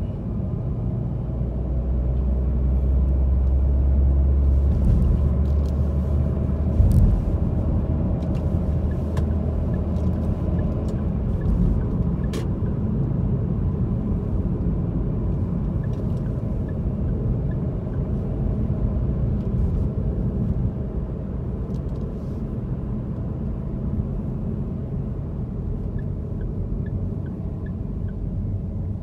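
Car driving in city traffic: a steady low rumble of engine and road noise, with one sharp thump about seven seconds in.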